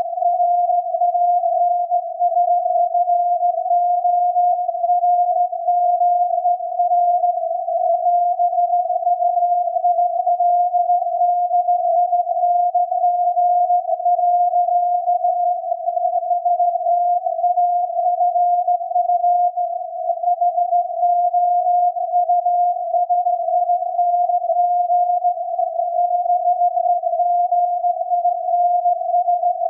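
SAQ Grimeton's Alexanderson alternator transmitting its 17.2 kHz VLF carrier, received on a loop antenna and software-defined radio and heard as an unbroken tone near 700 Hz inside a narrow band of receiver hiss. The pitch wanders by a few hertz and the level flutters.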